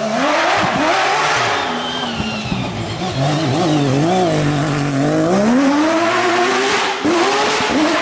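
Rally car passing flat out, its engine revving hard, the pitch climbing and falling back several times as the driver changes gear and lifts.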